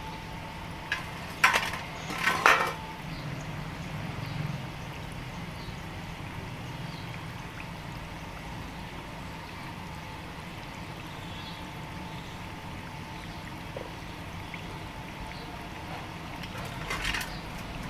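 Sabudana vadas deep-frying in a kadhai of hot oil, a steady sizzle. A few sharp metal clinks in the first three seconds and again near the end, from utensils knocking against the pan.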